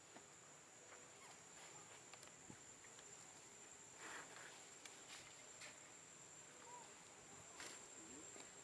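Near silence: a faint, steady high-pitched insect drone, with a few soft rustles about halfway through and near the end.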